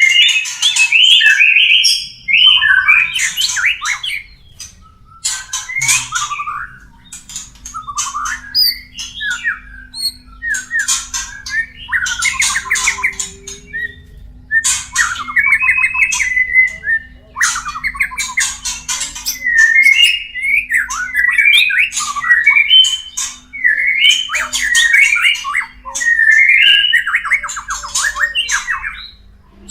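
White-rumped shamas giving harsh, buzzy mating calls mixed with sharp higher notes, repeated every second or two.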